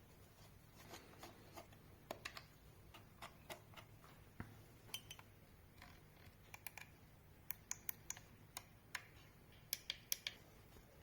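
Faint, irregular light clicks and taps of small hard plastic parts being handled, such as an RC transmitter and its packaging during unboxing. The clicks come more often near the end.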